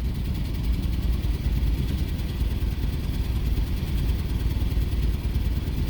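Jeep Commander's 4.7 L V8 idling with a steady low rumble, the sign of the random misfire (P0300, cylinder 6 reported) that the scan tool is logging.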